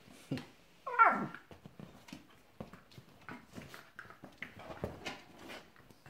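Two small dogs play-fighting on a leather armchair: scuffling and rustling throughout, with a short, sharp yelp about a second in that falls in pitch.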